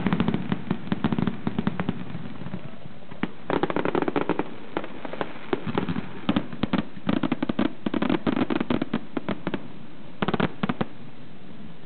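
Aerial fireworks display: shells bursting in rapid volleys of sharp bangs and crackle. The bangs come in dense clusters with short lulls between, the last quick cluster about ten seconds in.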